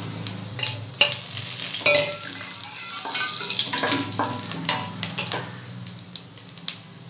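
Fennel seeds, black peppercorns and cumin sizzling in hot sesame oil in a stainless steel pan while a wooden spatula stirs and scrapes them, with sharp pops and clicks now and then. This is the tempering stage, the seeds starting to splutter.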